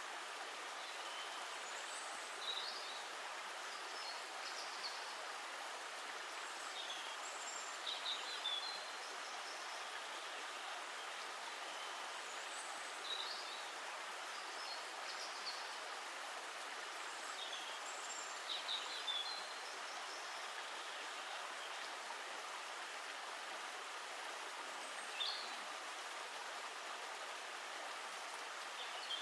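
Steady rushing of flowing water, with brief high bird chirps every few seconds.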